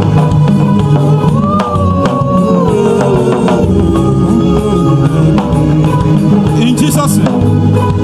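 Live gospel band music: bass and drums under a high lead line that bends and slides in pitch, sounding like a bird.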